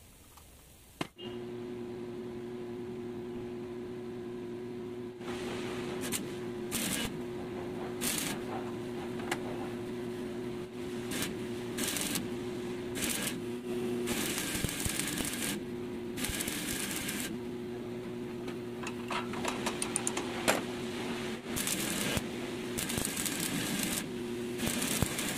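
Stick (arc) welding: the electrode's arc crackles and sizzles in a series of bursts, starting and stopping, some short and a few lasting a couple of seconds. Under it runs a steady machine hum that starts with a click about a second in.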